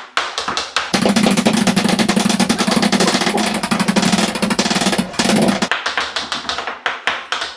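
Two knives chopping quickly on a plastic chopping board. From about a second in until near the end, the strokes run together into a dense, very fast rattle like a drum roll.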